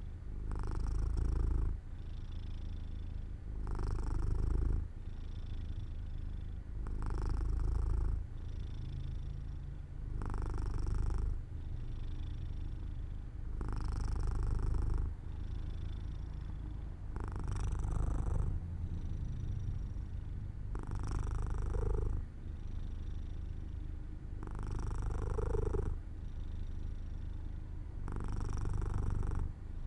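Domestic cat purring steadily, a low rumble that swells and eases with each breath, about once every three and a half seconds.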